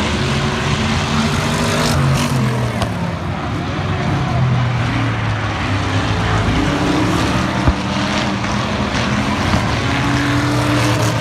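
Several race cars' engines running at speed around an oval track, an overlapping drone whose pitch rises and falls as the cars lap. A single sharp knock cuts through about two-thirds of the way in.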